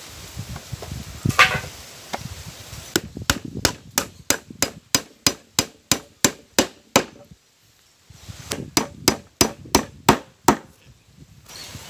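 Hammer driving nails into a boat's plywood covering: quick, even runs of sharp blows, about three a second, broken by a brief pause midway.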